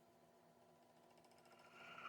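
Near silence: a faint steady hum, with a short hiss swelling up near the end.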